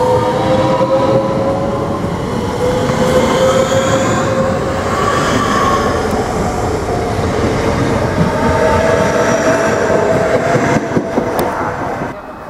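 Southeastern electric multiple-unit train pulling out, its traction motors whining in several tones that rise slowly in pitch as it gathers speed, over the rumble of wheels on the track. The sound drops off suddenly near the end.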